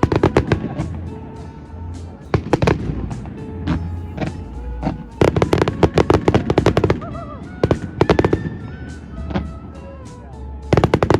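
Fireworks bursting in rapid crackling volleys, with several loud clusters of quick bangs and crackles and lulls between them. Music plays alongside.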